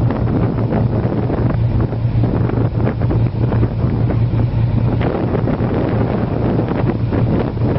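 Strong wind buffeting the microphone, with a steady low hum underneath.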